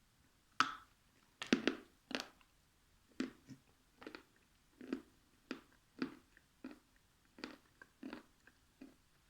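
A person chewing and biting food close to the microphone, wet mouth sounds coming in a steady run of about two a second after a brief quiet at the start.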